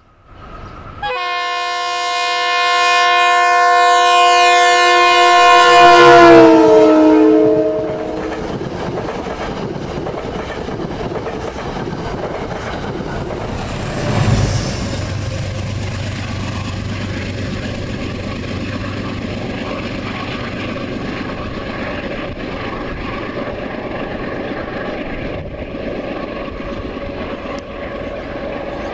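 A Metro-North commuter train passing close by. The leading Shoreliner cab car's air horn sounds one long chord of about five seconds that drops in pitch as the car goes past. The coaches then rumble by, and about halfway through the trailing GE P32AC-DM diesel locomotive passes with a thump and a low engine rumble that slowly fades.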